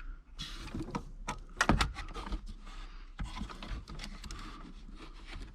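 Plastic wiring-harness connectors and wires being handled and fitted at a car radio: irregular small clicks and rustling, with a couple of sharper clicks about a second and a half in.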